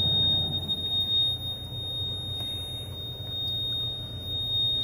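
M939A1 truck's heater blower motor running on its low speed, a faint steady hum. A steady high-pitched tone runs over it.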